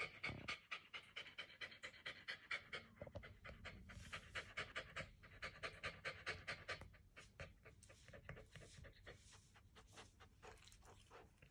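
A Shiba Inu panting quickly and steadily with its mouth open, the breaths growing softer in the last few seconds.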